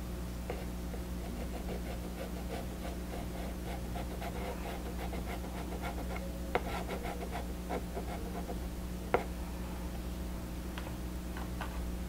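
Soft pastel stick scratching and rubbing across pastel paper in short strokes, over a steady low hum. A couple of sharper ticks stand out past the middle.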